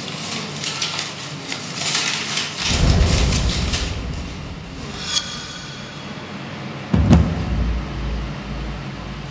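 Paper rustling and crackling as a folded sheet is opened and handled, followed by a deep low boom about two and a half seconds in and a sharp hit about seven seconds in, with a low rumble after it.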